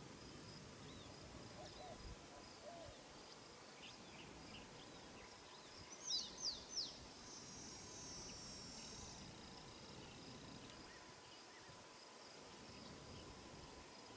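Faint outdoor ambience: a steady, high insect drone, with three quick bird chirps about six seconds in, followed by a high trill lasting about two seconds.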